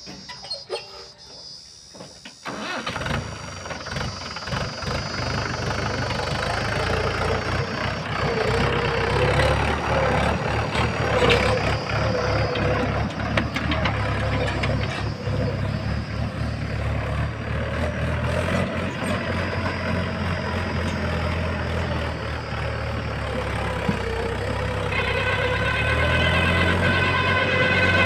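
Diesel engine of a Mahindra farm tractor pulling a trolley loaded with soil, its sound jumping up about two seconds in, then running steadily and slowly growing louder.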